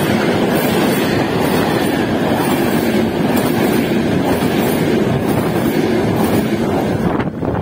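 Passenger coaches of a locomotive-hauled express train rolling past close by, with a loud, steady rumble of wheels on the rails. The noise falls away suddenly about seven seconds in as the last coach goes by.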